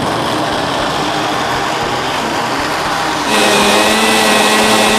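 Electric countertop blender switched on and running, grinding shallots, garlic, candlenuts and nutmeg with a little water into a spice paste. About three seconds in it gets louder and settles into a steadier, higher whine.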